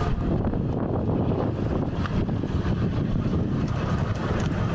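Steady low rumble with wind noise on the microphone.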